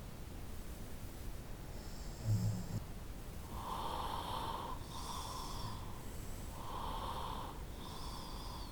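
A sleeping person snoring: one short, low snore about two seconds in, then four shorter, higher, breathy breaths in a regular run.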